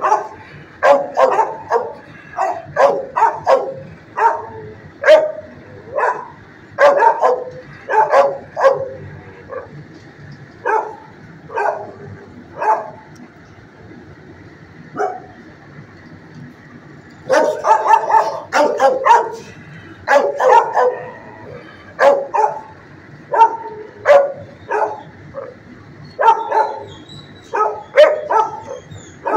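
Kennel dogs barking, a quick run of short, sharp barks with a lull of a few seconds around the middle.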